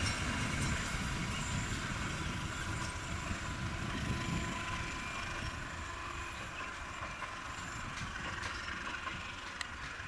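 A passing train's rumble fading gradually as it moves away, with a few faint clicks near the end.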